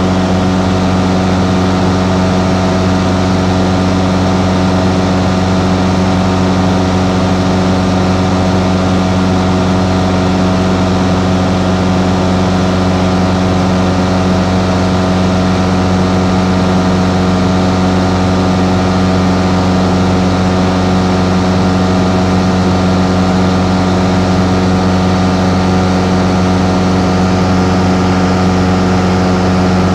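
Light aircraft's piston engine and propeller running at a steady cruise setting, a constant drone heard from inside the cockpit, with rushing airflow beneath it.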